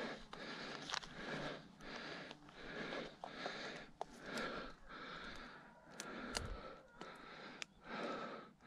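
A man breathing hard close to the microphone, a quick, regular run of breaths in and out, with a few small clicks and rustles among them.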